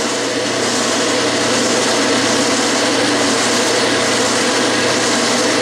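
Metal lathe running steadily at 500 RPM while a carbide-tipped boring bar cuts the bore of an aluminium casting: a continuous mechanical whir with a steady hum.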